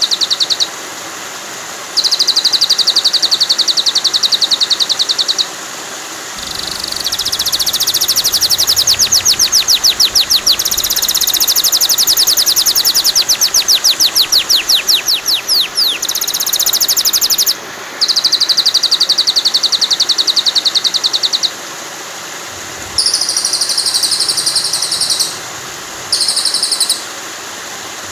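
Recorded songbird song used as a masteran (training track for white-rumped shamas): bursts of very fast trilled notes and sweeping chattering runs, each a few seconds long with brief pauses between, over a steady hiss of flowing water.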